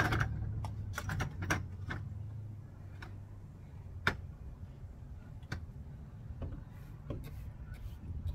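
Scattered sharp clicks and knocks from an aluminium step ladder as a person climbs it, the loudest about four seconds in, over a low steady hum.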